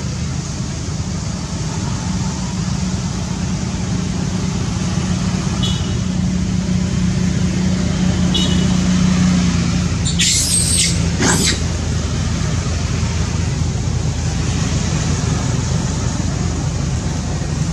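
Steady low background rumble, with two short shrill squeaks about a second apart just past the middle.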